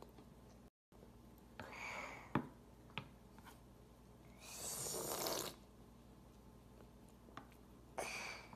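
Three noisy, breathy puffs of breath, the longest about a second, with a couple of small sharp clicks between the first two.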